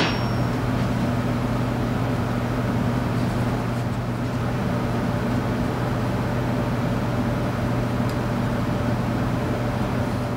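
A steady low machine hum runs throughout. A sharp metallic clink sounds right at the start, and a few faint clicks come from parts being handled.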